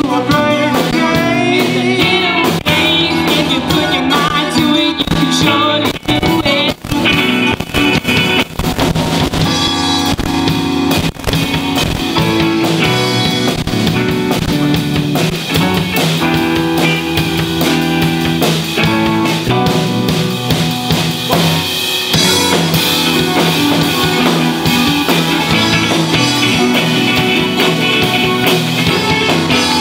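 Live rock band playing: electric guitars, a Pearl drum kit and a Kawai keyboard, with a female lead vocal near the start. The band drops out for a few short breaks between about six and eleven seconds in.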